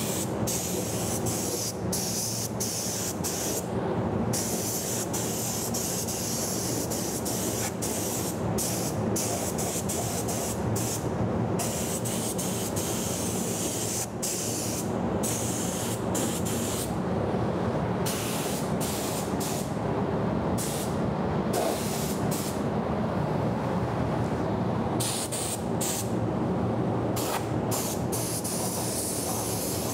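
Gravity-feed compressed-air spray gun spraying paint in bursts. The hiss starts and stops many times as the trigger is pulled and let go, over a steady low hum.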